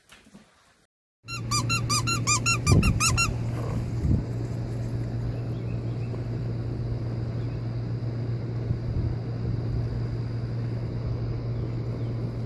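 A rapid run of high squeaks, about six a second, lasting roughly two seconds, with a thump or two among them. After that a steady low hum with rushing outdoor noise runs on.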